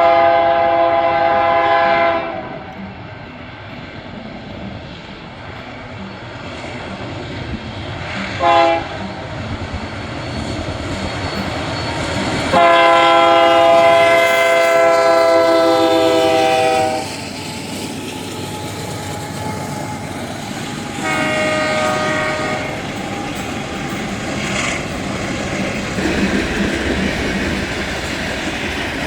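Union Pacific diesel locomotive's multi-chime air horn sounding four blasts: one at the start, a short one about eight seconds in, a long one held for over four seconds near the middle, and a shorter one after it. Under the blasts the freight train's rumble and the clickety-clack of its wheels grow louder as it passes.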